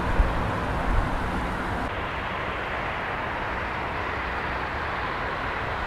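Steady outdoor rumble and hiss of an industrial area's ambience. About two seconds in, the high hiss drops away and a lower, steadier rumble carries on.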